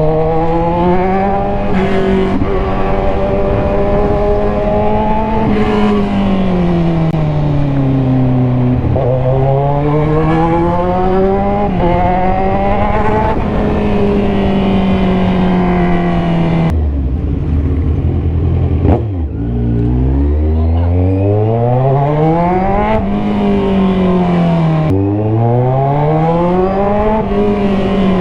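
A 2015 Kawasaki Z1000's inline-four engine through an aftermarket Orion exhaust, loud, its pitch rising as it pulls and falling as it eases off, again and again in traffic. About 17 seconds in it drops to a low idle rumble for a couple of seconds, then revs up quickly again.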